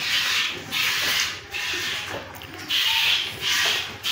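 Cow being milked by hand: milk squirting into a pail in rhythmic hissing jets, a little under two a second, weakening briefly about halfway through.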